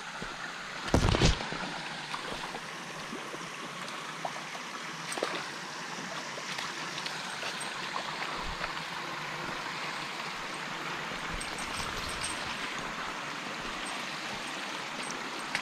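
Steady rush of flowing creek water, with one loud thump about a second in.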